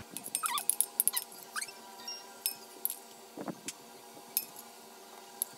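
A metal spoon clinks and scrapes against a ceramic plate as mango pieces are scooped out. The light clinks come thickest in the first couple of seconds and grow sparser, with a duller knock about midway.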